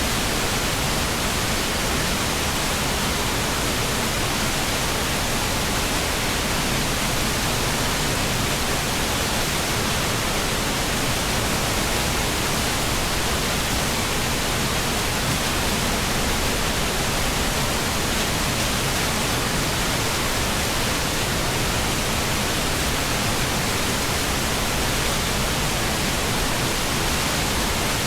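Steady rush of fast-flowing mountain river water, a dense even hiss at constant loudness.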